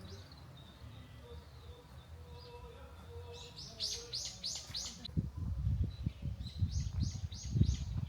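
A small songbird calling: two quick series of short, high, repeated chirps, about four a second, the first a little past the middle and the second near the end. Low uneven thumps run underneath in the second half.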